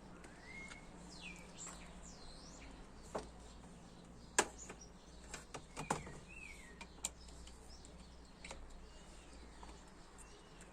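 Faint bird chirps, short rising and falling calls, with scattered sharp clicks and taps.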